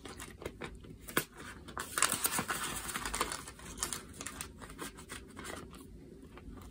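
Clear plastic cash envelope and paper bills rustling and crinkling as cash is slid into the envelope and it is handled and closed, with small clicks; the rustle is loudest for a second or so about two seconds in.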